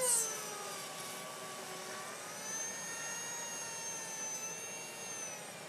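Slow-speed dental lab handpiece spinning a Brasseler 8219 cutting burr through thermoformed EMA plastic: a steady whine whose pitch dips slightly early on, then rises and holds.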